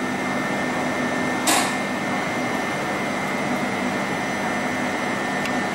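Standing electric train's ventilation and auxiliary equipment running with a steady hum, with one short sharp click about one and a half seconds in.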